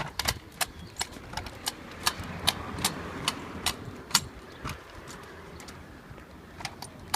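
Footsteps walking on hard ground, sharp regular steps about two and a half a second, thinning out in the second half.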